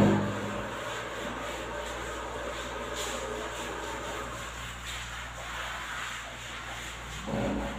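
Sponge scrubbing a glass shower screen: a soft, steady rubbing, with a thump right at the start and a smaller one near the end.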